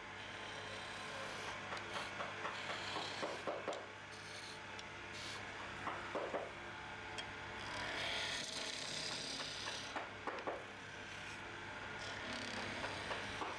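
Hand turning of an oak spindle on a lathe: a chisel cuts along the spinning wood with an uneven scraping hiss of shavings and small knocks, over the steady hum of the lathe motor. The cutting swells loudest about two-thirds of the way through.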